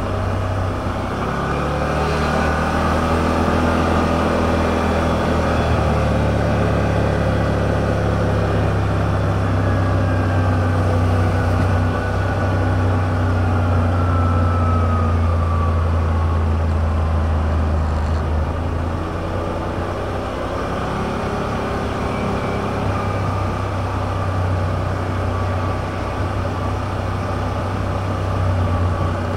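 Yamaha RMAX side-by-side's 999 cc parallel-twin engine and drivetrain droning steadily while driving at low speed, the pitch rising and falling as the throttle and road speed change.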